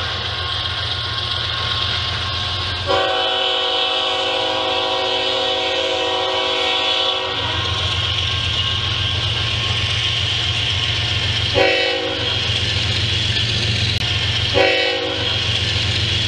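Air horn of an approaching BNSF diesel freight locomotive: two long blasts, the second louder, then two short blasts, over the steady low rumble of the oncoming train.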